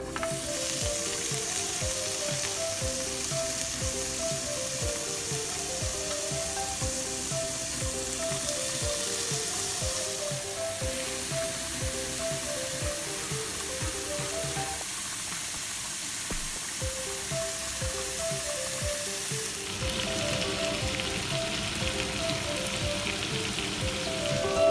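Beef tenderloin steaks sizzling steadily as they sear on a ridged grill pan over high heat, with light background music.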